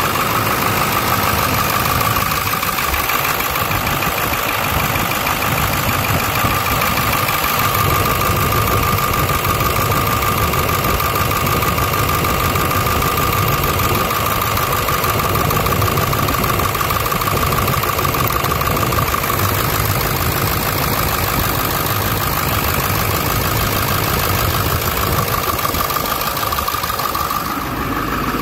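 1999 Ford F450 dump truck's engine idling steadily under the open hood, with a steady high whine over the idle.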